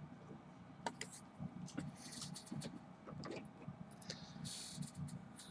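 Faint, scattered clicks and rustling of hard plastic graded-card slabs being handled on a table.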